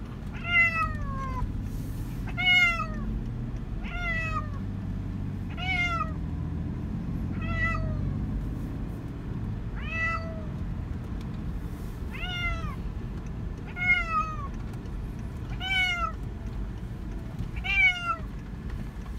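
Calico cat meowing repeatedly in a car, about ten meows spaced roughly two seconds apart, each call falling in pitch, over a low steady rumble.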